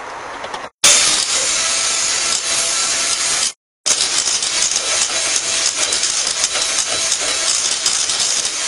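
Electric hand mixer whipping chilled cream in a stainless steel bowl: a steady whirring hiss of the beaters with a faint motor hum. It breaks off twice for a moment, under a second in and again near the middle.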